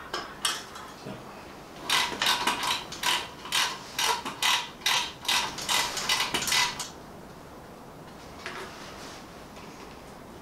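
A hand tool tightening the front mudguard fixings on a motorcycle: a run of about a dozen short, sharp metallic strokes, roughly two a second, from about two seconds in until about seven seconds in, then only faint handling.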